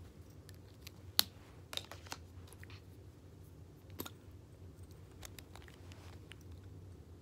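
Scattered small clicks and taps from handling close to the microphone, sharpest about a second in, with a few more around two seconds and near the middle, over a low steady hum.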